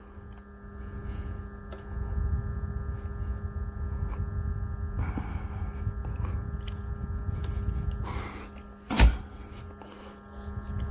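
Small personal evaporative air cooler's fan running with a steady electrical hum and a low rumble of moving air, with a few light clicks and one sharp click about nine seconds in.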